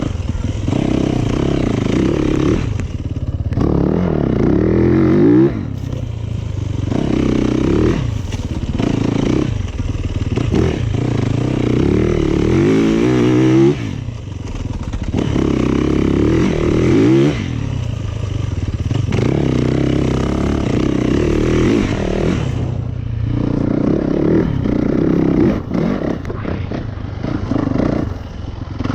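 Yamaha YZ450FX dirt bike's single-cylinder four-stroke engine, revving up and backing off again and again as it is ridden through tight turns, the pitch climbing and then dropping sharply every few seconds.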